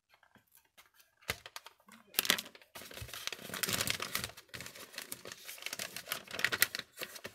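Kraft gift-wrapping paper crinkling and rustling as it is pulled open from about two seconds in, after a few faint ticks as a craft knife slits the tape.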